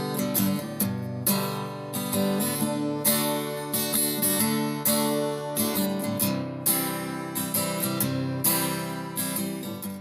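Acoustic guitar music, strummed and plucked with a steady rhythm.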